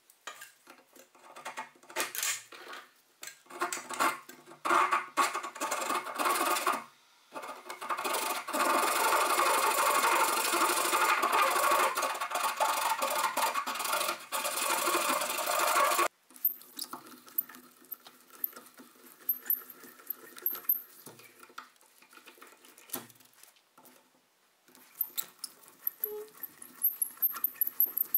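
A hand saw scraping back and forth over a wooden machete handle, first in uneven strokes, then in a dense continuous stretch that cuts off suddenly about halfway through. Near the end a hand-cranked drill bores into the wood with quick clicking.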